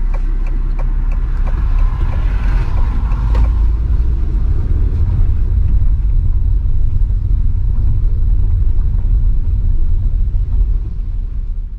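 Steady low rumble of a car driving, heard from inside the cabin, with its tyres running on an unpaved dirt track for most of it. It fades out at the very end.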